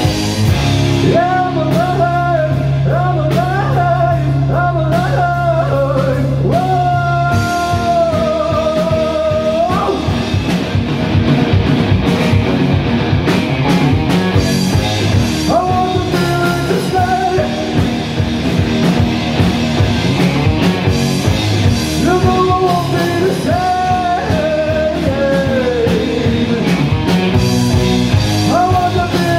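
A live rock band playing: electric guitar, bass and drum kit, with a melody line carried over the top.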